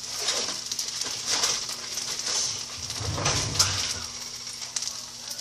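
Food sizzling in a frying pan, with scattered clicks and knocks of utensils and a low dull sound about three seconds in.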